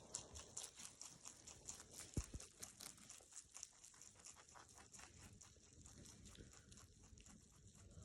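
Two rabbits chewing leafy greens: rapid, faint, crisp crunching, several bites a second.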